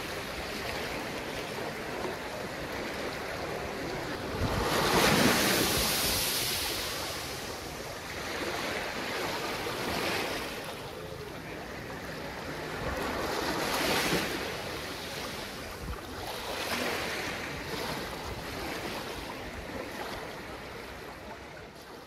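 Surf breaking and washing up a sandy beach, with a swelling crash every three to five seconds, the biggest about five seconds in. The sound fades out near the end.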